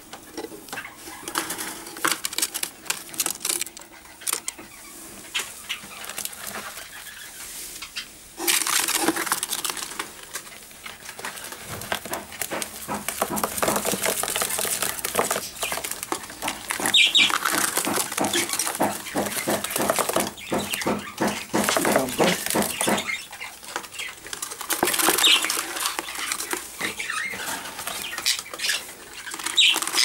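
Young budgerigars scrabbling and fluttering in a wooden nest box while they are handled, a busy run of scratching and wing rustling. A few short high chirps come through in the second half.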